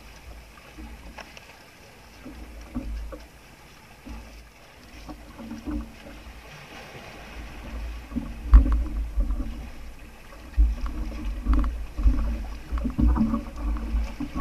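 Small outrigger boat at sea: water lapping against the hull with low rumbling gusts and irregular knocks from the boat, quiet at first and growing louder about halfway through.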